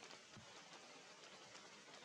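Near silence: faint steady hiss with a few soft clicks.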